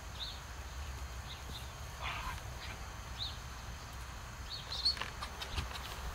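Outdoor ambience: a few short, high bird chirps, a brief rustle about two seconds in, and a cluster of light clicks near the end, over a low steady rumble.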